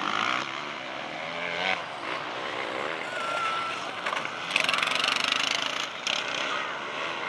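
Motocross dirt bike engines revving and changing pitch around the track, with one bike passing louder and closer about halfway through.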